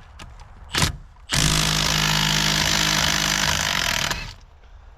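3/8-inch impact wrench hammering steadily for about three seconds, loosening a wheel lug nut, after a short click just under a second in.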